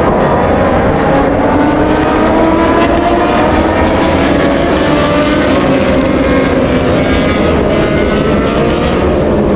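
Racing motorcycle engines running on track, several at once, their pitches slowly rising and falling over a steady wash of noise.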